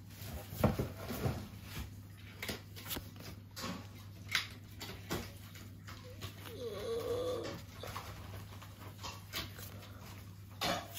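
Trading cards being flipped through in the hand, with scattered soft clicks and slides of card stock. About two-thirds of the way in, a pet gives a short wavering whine lasting about a second.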